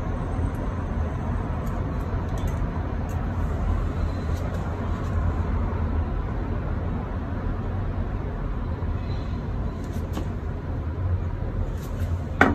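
Steady low rumble of a road vehicle driving, engine and road noise without a break, with one sharp knock near the end.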